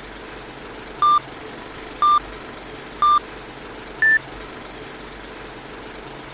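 Film-leader countdown beeps: three short beeps at one pitch, one a second, then a fourth, higher beep, over a steady film-projector rattle.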